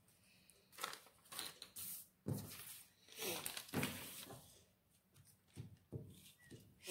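Brown pattern paper rustling and sliding on a wooden tabletop as it is handled and smoothed flat by hand, in uneven bursts with a few light knocks.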